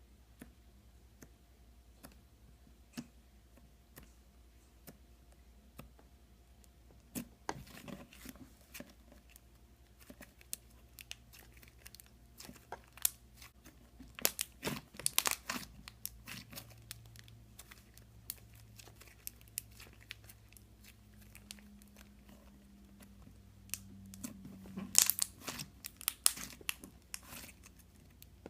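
Slime being pressed and stretched, giving scattered sticky crackles and pops. They are sparse at first, come in dense clusters about a quarter and halfway through, and again near the end.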